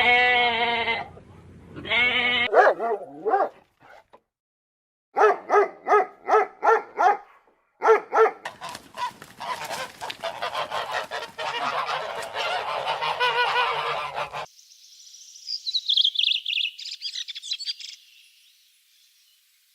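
A string of separate animal-call recordings. First come a few wavering calls, then a run of five or six loud honk-like calls about two a second. A flock follows, calling all together for several seconds, and high-pitched chirps come near the end.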